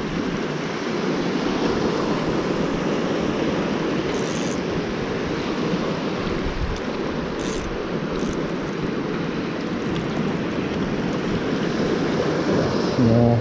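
Small waves washing over a rock shelf with wind on the microphone, a steady rushing noise. A brief low hum near the end.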